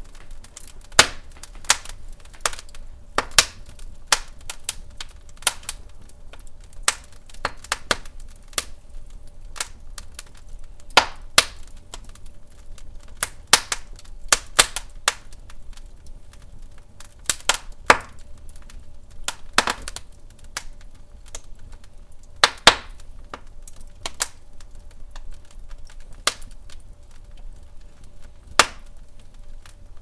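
Douglas fir logs burning in a fireplace, crackling with irregular sharp pops and snaps over a low rumble of the flames.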